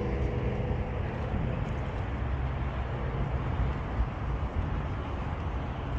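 A motor vehicle's engine hum fades out about a second in, leaving a steady wash of outdoor traffic noise.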